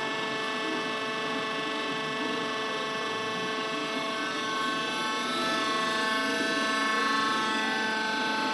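Worm screen centrifuge running on its test run after a rebuild with new main drive and gearbox bearings. The electric motor, V-belt drive and machine make a steady mechanical whine of several held tones over a rumble, growing a little louder about two-thirds through.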